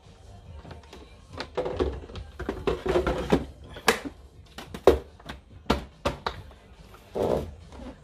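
Irregular knocks, clicks and thuds of the plastic water tank being handled and fitted into the back of a Breville Oracle Touch espresso machine, with a few sharp knocks standing out midway.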